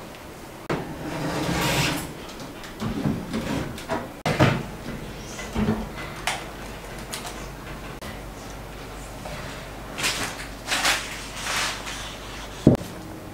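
An oven door opens and a metal baking tray is drawn out of the oven with knocks and clatters, and an oven knob is turned. Then comes rustling and one sharp knock near the end as the tray of baked sponge is turned out onto a cloth-covered table.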